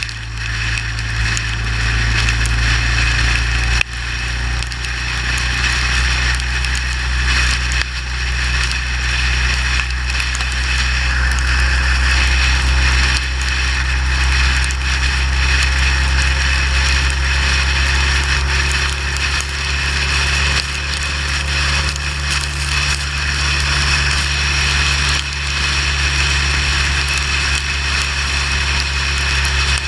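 Motorcycle riding at highway speed in the rain: a steady low drone of engine and wind, with a constant crackle of rain hitting the bike and microphone.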